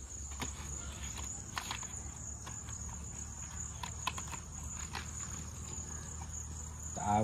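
Steady high-pitched insect chirring, with scattered light clicks and taps as a new smartphone and its paper packaging are handled.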